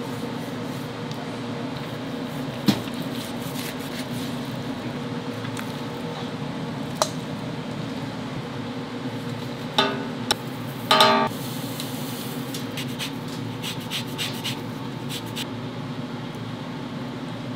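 Commercial kitchen prep sounds over a steady ventilation hum: a sharp knock a few seconds in, a lighter click, two short rattles about ten and eleven seconds in, then a run of small clinks and ticks from utensils and containers.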